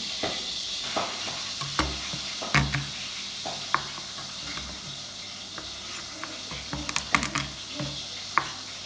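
Pork frying in oil in a pan, a steady sizzle, with irregular sharp knocks of kitchen utensils.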